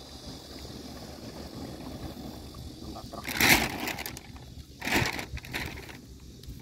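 Plastic sack rustling and crinkling as it is handled, in two loud bursts about three and a half and five seconds in, over a low steady rumble.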